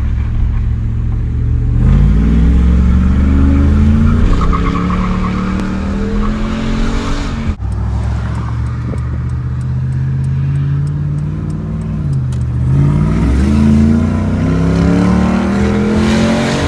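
Dodge Ram 1500's 5.7 Hemi V8 accelerating at full throttle, its pitch climbing, dropping back about three-quarters of the way through, then climbing again. The engine pulls strongly now that the cold-and-under-load misfire has been cured with new spark plugs, wires and coil packs.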